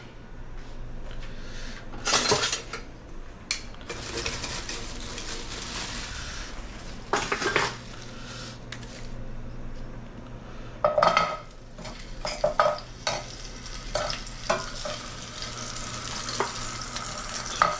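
Dumplings sizzling in hot oil in a frying pan as they are laid in one at a time, each drop bringing a sharp flare of hissing. Metal tongs click and clink against a steel bowl in between.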